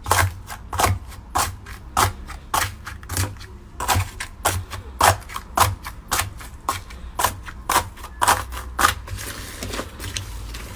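Slime being pressed and squeezed by hand, popping and clicking sharply about two to three times a second with soft thuds under the pops. The clicks die away about nine seconds in.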